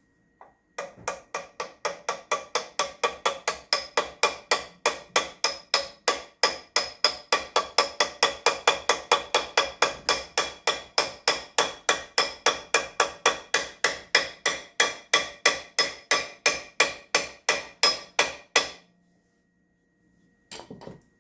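Hammer striking metal in a steady rhythm, about four ringing blows a second for some eighteen seconds, then a short burst of sound near the end.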